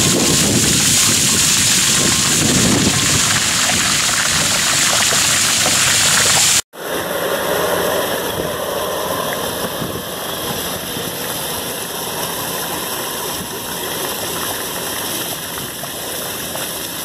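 Water gushing from a large hose into a fiberglass pool as it fills, splashing steadily onto the water in the shell. The sound cuts out for an instant about seven seconds in, then the splashing carries on.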